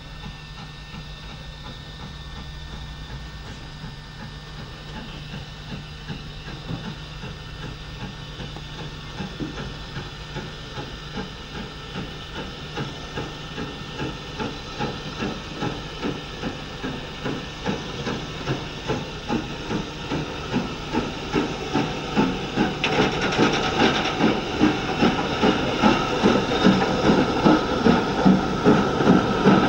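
Steam locomotive working, its exhaust beats over a steady hiss of steam growing louder as it approaches, about two beats a second near the end.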